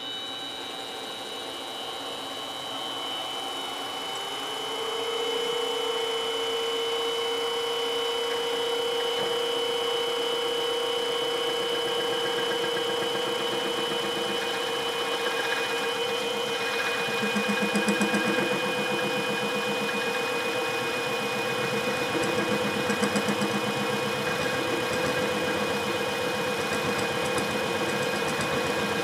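Benchtop mini milling machine running: its spindle motor whines, rising in pitch as it comes up to speed about four seconds in, then runs steadily while the end mill cuts into a metal block to widen a hole, with a few louder rough patches in the second half.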